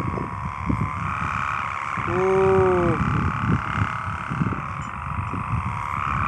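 Kite hummer (sendaren) droning in the wind: a steady, wavering buzz that is loud enough to drown out the small pigeon whistle on the kite. Underneath is an irregular low rumble, and about two seconds in a short hum rises and then falls in pitch.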